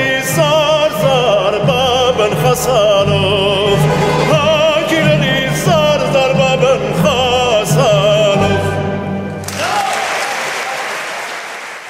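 Male solo voice singing the closing phrases of an Armenian folk song with strong vibrato, backed by a folk orchestra of qanuns, bowed strings and plucked lutes. The music stops about nine and a half seconds in and the audience breaks into applause, which fades away.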